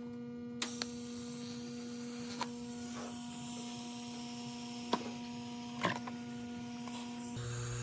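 Steady electrical hum from TIG welding equipment, with a few light clicks.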